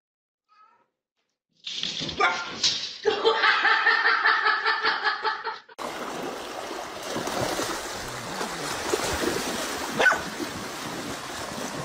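An animal's loud, drawn-out, pulsing vocal call lasting about four seconds. After a sudden break it gives way to the steady rush of a shallow stream, with one sharp click near the end.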